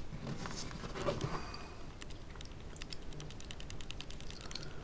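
Small screws and a gimbal plate handled by hand: light, irregular clicks and ticks as the screws are pushed into the plate's holes, coming thick and fast in the second half.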